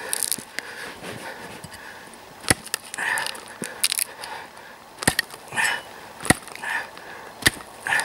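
An axe chopping at a chaga growth on a birch trunk: four sharp, irregularly spaced blows, with softer scuffing sounds between them.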